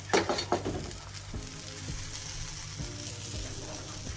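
Moong dal patties frying in hot mustard oil, a steady sizzle, with a few sharp knocks in the first half-second.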